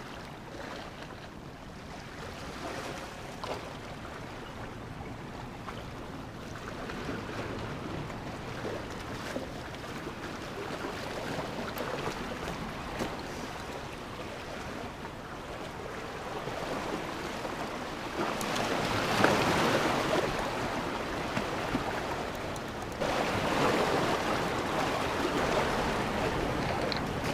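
Ocean surf washing against the shore: a steady rush of water with two louder surges of breaking waves in the second half.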